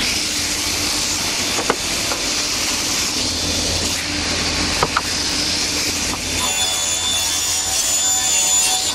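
Sliding table panel saw running with its dust extraction, a steady machine noise with a low hum and a couple of small clicks. About six seconds in a higher whine joins as a spruce board is fed into the blade.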